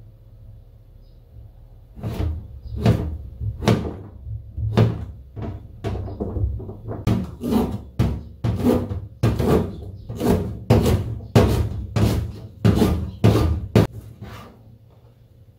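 Kitchen knife chopping vegetables on a plastic cutting board: zucchini, then green onion cut into rounds. A run of sharp chops begins about two seconds in, slow at first, then quickening to about two or three a second, and stops about fourteen seconds in.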